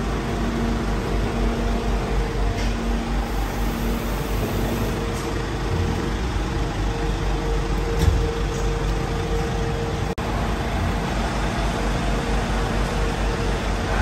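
Truck diesel engine idling steadily with a constant hum, with a brief click about eight seconds in and a momentary break just after ten seconds.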